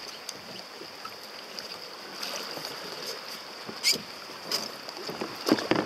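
Water lapping against plastic sea kayaks rafted side by side, with a few short sharp knocks as the hulls and gear bump together, the loudest about four and about five and a half seconds in.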